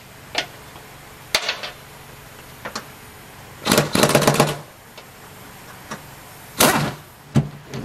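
Impact wrench hammering a 9/16 nut loose on the mower deck's spindle bearing housing: a rattling burst of just under a second around the middle and a shorter burst near the end, with a few single clicks before.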